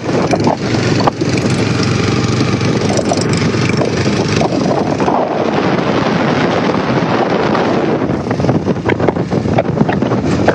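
Quad bike engine running while riding, with wind buffeting the microphone and scattered knocks and rattles over a steady low hum.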